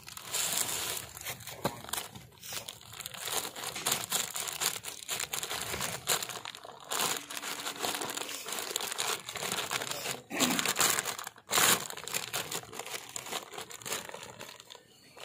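Continuous irregular crinkling and rustling, as of material being handled and scrunched, with louder scrunches about ten and a half and eleven and a half seconds in.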